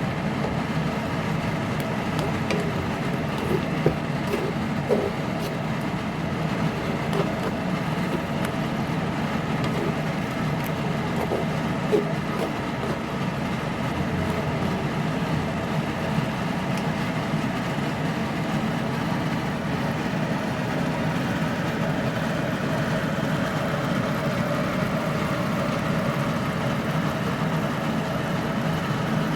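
A steady mechanical hum, with a few light clicks and knocks over it.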